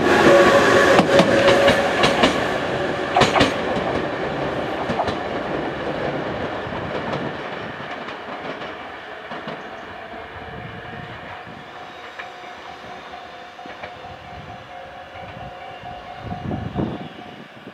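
Tobu 100 series Spacia electric train accelerating away, with a VVVF inverter whine and wheels clicking over rail joints as the cars pass close by. The sound fades steadily as the train pulls away.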